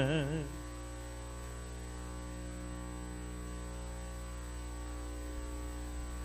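The last sung note of a hymn, held with vibrato, dies away about half a second in. What remains is a steady electrical mains hum from the sound system.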